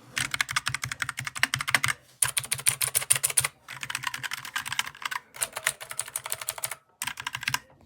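Fast typing on a computer keyboard: dense runs of key clicks in several bursts, each broken off by a short pause.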